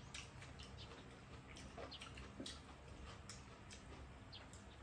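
Quiet eating sounds: scattered light clicks of spoons against ceramic bowls, with small mouth sounds of chewing, over a faint steady room hum.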